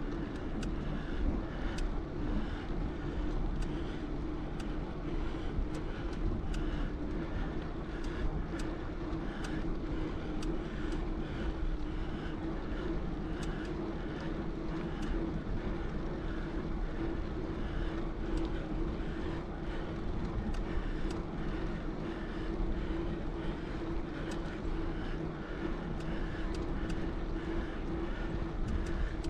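Bicycle rolling along: a steady low rumble and hum from the ride, with a light tick repeating about every three-quarters of a second.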